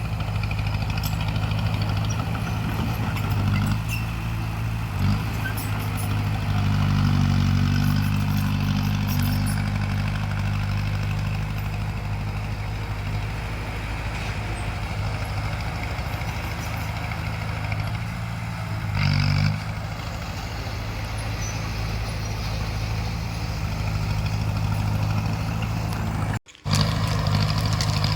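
Bulldozer diesel engine running steadily, working harder and higher from about six seconds in and again briefly near nineteen seconds. The sound cuts out for an instant near the end.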